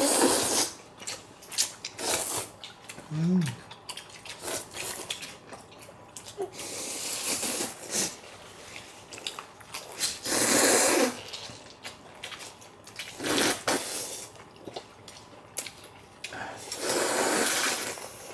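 Warm kimchi noodles slurped in broth: several long, noisy slurps, each a second or two, with small clicks between them.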